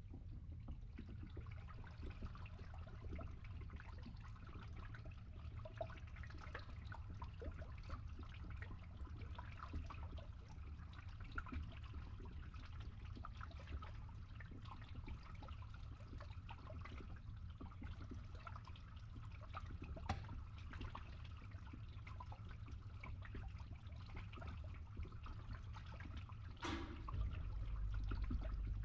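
Water draining through a pipe, trickling steadily over the low, even hum of a running pump. A short sharp sound comes about two seconds before the end, and the low hum grows louder just after.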